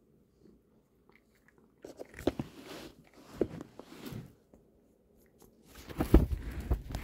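Black cat chewing dry cat treats, crunching them in short bouts. It is nearly quiet for the first two seconds, and the crunching is loudest near the end.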